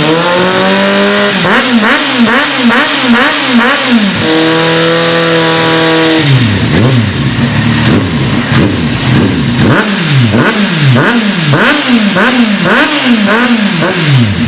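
Kawasaki Z800's inline-four engine revved hard through a Roncar Coyote 5 stainless-steel sport exhaust. It makes repeated quick throttle blips, a bit under two a second, and twice holds high revs for a second or two before dropping back.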